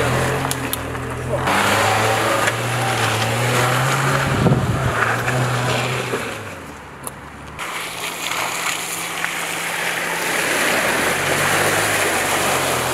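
Dacia Duster 4x4's engine running steadily at low revs under load off-road, with tyre and body noise over rough ground and a sharp thump about four and a half seconds in. After a brief dip about seven seconds in, the noise of tyres churning through mud and water rises over the engine.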